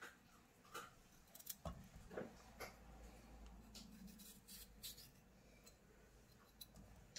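Faint, scattered clicks and taps of a kitchen knife cutting peeled cucumber into small pieces by hand, busier in the first few seconds and sparser after, over a faint low hum.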